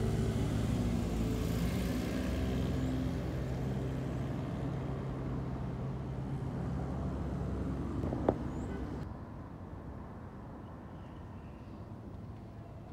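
Street traffic: a motor vehicle's engine running steadily, then fading away. A brief sharp sound comes about eight seconds in, and after it only quieter street background remains.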